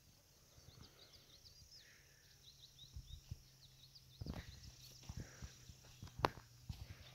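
Quiet hillside ambience with faint, rapid high twittering of small birds for the first few seconds. From about three seconds in come irregular soft thumps and clicks of footsteps on dry earth, the loudest a little after six seconds.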